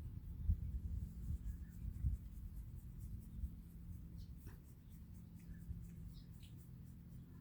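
Faint scratchy rubbing strokes on a cat's fur as it is groomed, over a low rumble that is strongest in the first couple of seconds.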